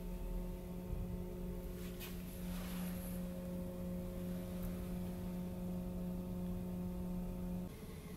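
Steady low hum with several even pitched tones, the ship's machinery heard inside a ferry cabin. It stops abruptly shortly before the end.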